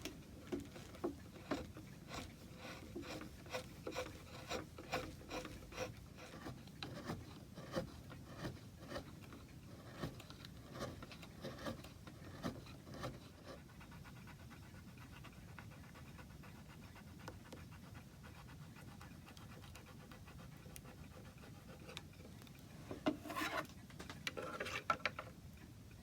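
Repeated hand strokes of a rasp or abrasive rubbing on wood, about two a second, stopping about halfway through; a brief flurry of rubbing near the end.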